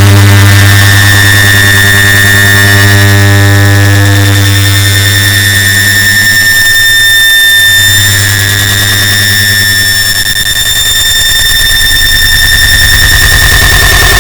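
Air conditioner start-up sound stacked on itself and amplified into a loud, distorted drone: a deep electrical hum with several steady high whines over a hiss. The hum weakens about seven seconds in and returns a little lower.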